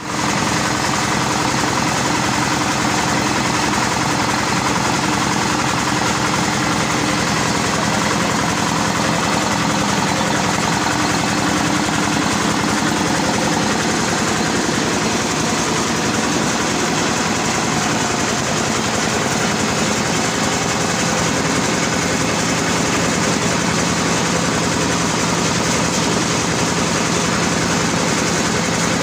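Large double-blower corn sheller driven by a Yanmar 8.5 hp single-cylinder diesel engine, running steadily with an even mechanical drone.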